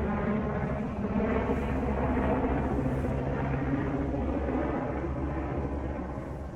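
A steady engine drone, a low hum with several held tones above it, easing off a little near the end.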